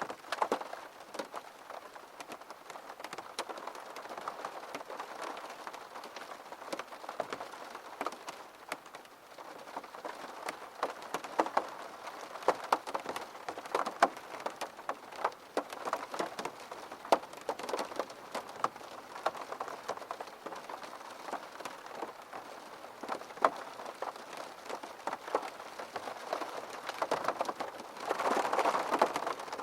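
Steady rain falling, with many separate drops striking close by as sharp ticks over the even hiss of the downpour. It swells briefly louder near the end.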